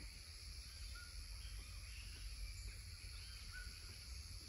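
Quiet outdoor background: a steady low rumble with a few short, faint chirps.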